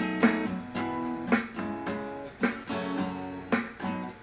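Soft indie rock band playing live, with strummed guitar chords carrying the music between sung lines. A sharp accent falls about once a second.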